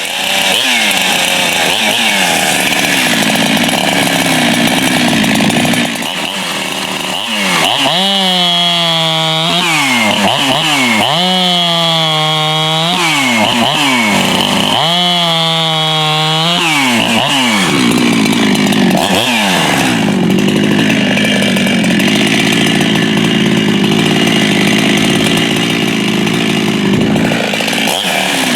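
Ported FarmerTec 372 two-stroke chainsaw with a 272 piston cutting wood at full throttle, then revving up and dropping back three times in a row with a clear rising and falling pitch, then bogging into the wood again for the last several seconds. The carburettor still needs a little tuning.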